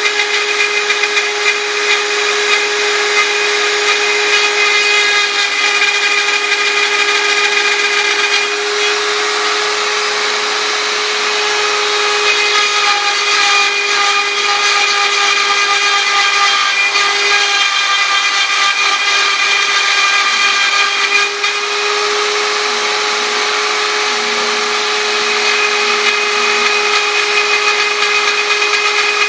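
Small CNC router running as it engraves lettering: the spindle whines at a steady pitch over the rasp of the bit cutting, with higher tones that change every few seconds as the machine moves.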